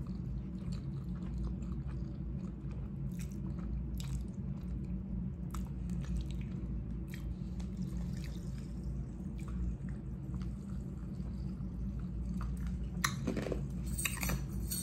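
A person chewing a mouthful of spaghetti with meat sauce, with scattered small wet mouth clicks.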